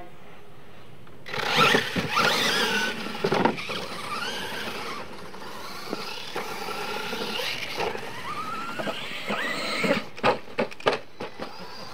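Losi LMT radio-controlled monster trucks racing on dirt: the whine of their electric motors rises and falls with the throttle, starting loud about a second in. A run of sharp knocks comes near the end.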